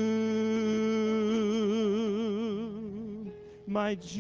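Worship song: a man's voice holds a long note on the end of a line, with a soprano saxophone playing along. Vibrato comes in after about a second, the note fades out near three seconds, and the next phrase starts near the end.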